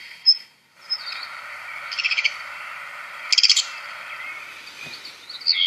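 Black redstart song from a recording: a few short high notes, then two brief bursts of rapid notes about two and three and a half seconds in.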